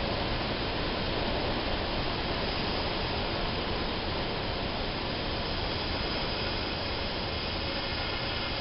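Propeller engine and wind rush of a light single-engine airplane, heard inside the cockpit as a steady noisy drone while it flares over the runway to land.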